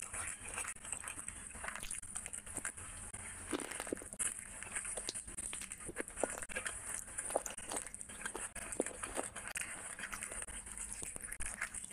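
Close-up eating sounds: a man chewing and smacking on mouthfuls of rice and chicken curry eaten by hand, with wet squishes of his fingers mixing the rice on a glass plate. The sound is many small, irregular clicks and smacks.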